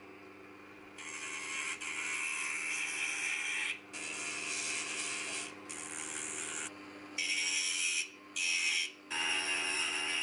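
Handheld rotary tool with a small sanding drum running with a steady hum, broken by about six bouts of grinding as the drum sands the wooden side of a miniature drawer, the first starting about a second in. The sanding trims the drawer to fit its opening.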